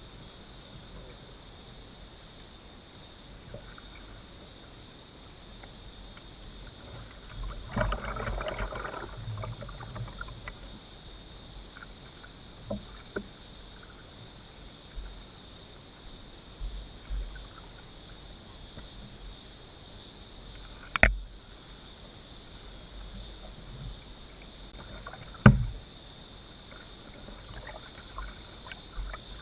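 Cicadas droning steadily, high-pitched, with a kayak paddle swishing and splashing in the water about eight seconds in. Two sharp knocks come later, the louder one about three quarters of the way through.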